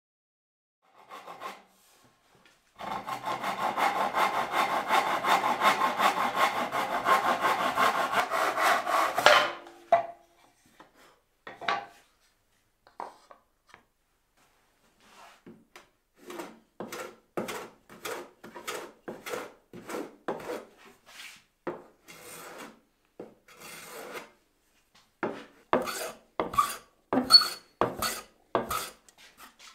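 Hand tools working wood: about six seconds of continuous rasping, then, after a pause, a run of short, quick strokes, about two a second, as a hand plane shaves the edge of a thin board.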